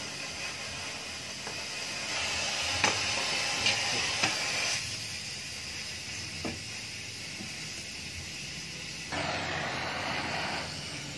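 Gas welding torch flame hissing steadily, its level and brightness shifting a few times, as it is used to weld the rear cap of a motorcycle exhaust muffler. A few light knocks come from the muffler being handled.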